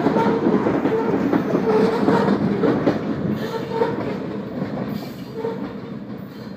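Freight train cars rolling past on the rails with a clickety-clack and brief squealing tones from the wheels, the sound fading as the end of the train moves away.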